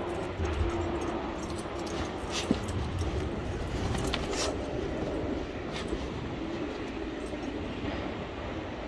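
Dogs playing in snow close to the microphone, over a steady low rumble of wind and handling on the mic. A few light metallic jingles, like collar tags, come around two to six seconds in.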